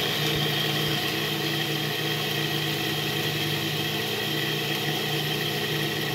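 Cuisinart 14-cup food processor running continuously, a steady motor hum with a higher whine, as its blade grinds grated Parmesan, pine nuts, salt and pepper into a dry paste.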